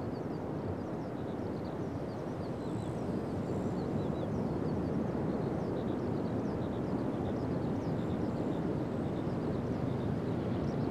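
Pacific Ocean surf breaking and washing steadily on a sandy beach, its rumble swelling a little about four seconds in, with many faint high chirps throughout.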